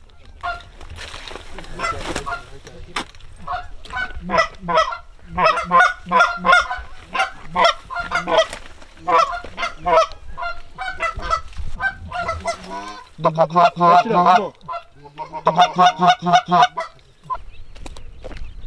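Canada goose honks and clucks: loud, rapid strings of short notes in several runs with brief breaks, some notes sliding in pitch.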